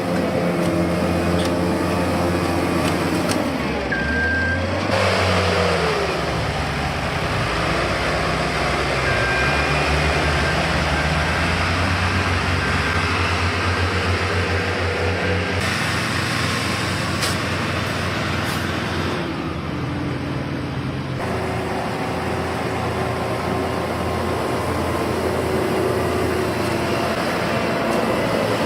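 Heavy road-construction machinery running steadily, with short high beeps now and then.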